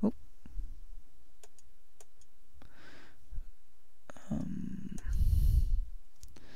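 Faint computer-mouse clicks, with a louder low, muffled noise lasting about a second near five seconds in.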